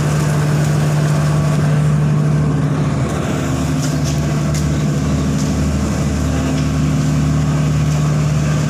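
Engine running with a steady low drone that changes character about three seconds in, followed by a few faint ticks.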